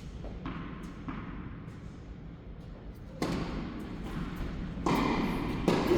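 Tennis balls struck and bouncing on an indoor court: a few sharp knocks in the first half, then louder, busier noise from about halfway through.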